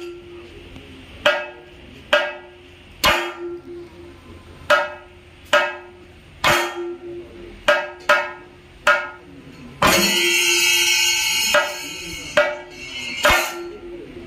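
Chenda drums playing thayambaka at a slow pace: single sharp strokes about once a second, each ringing briefly. About two-thirds of the way in comes a denser, ringing passage lasting about a second and a half.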